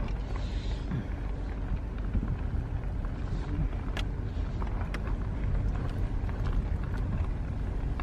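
Car moving slowly, heard from inside the cabin: a steady low rumble of engine and tyres, with a few light clicks or knocks, the clearest about four seconds in.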